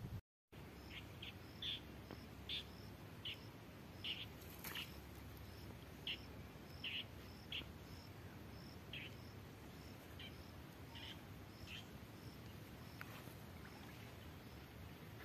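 Faint outdoor ambience of birds chirping in short repeated calls, about one or two a second, with an insect pulsing evenly at a higher pitch, over a low steady background noise.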